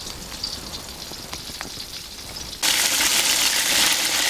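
Battered chicken legs deep-frying in hot oil in a cast-iron kazan: a light sizzle with a few sharp crackles, then, about two-thirds in, a sudden change to a much louder, dense sizzle of oil bubbling hard around the browning chicken.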